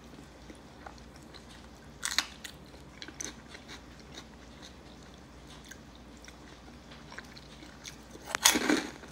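Close-up mouth sounds of a person chewing a hand-fed mouthful of khichiri, with a few soft clicks about two and three seconds in and a louder cluster of chewing and lip noises near the end.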